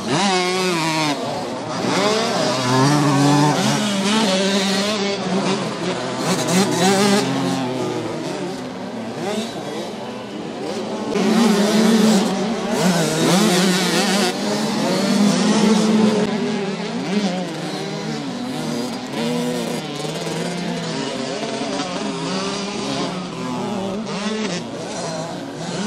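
Several small two-stroke 65cc motocross bikes revving hard and dropping off, their overlapping engine notes rising and falling as they ride past, louder in swells.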